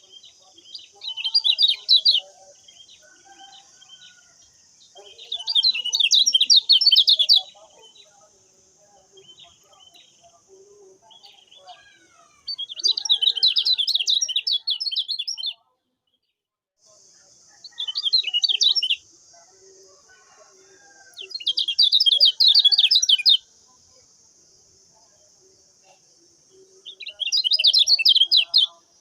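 Kecial kuning songbird singing: six loud bursts of fast, high chattering song, each one to three seconds long, with softer scattered chirps between them. A steady high hiss runs behind the song and drops out briefly about halfway through.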